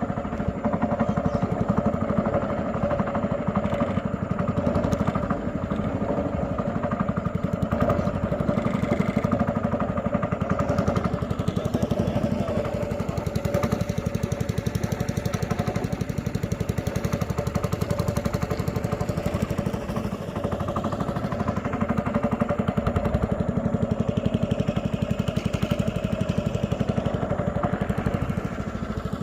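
A small riverboat's engine running steadily at constant speed.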